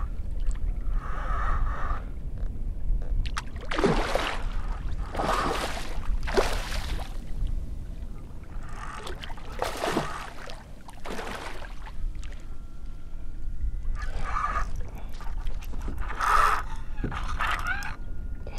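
Kayak paddle dipping and pulling through the water: a series of splashing swishes a second or so apart, in short runs, over a steady low rumble.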